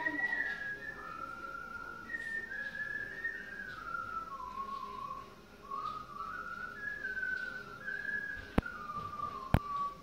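A person whistling a slow tune, one clear note moving up and down in steps. Two sharp clicks near the end.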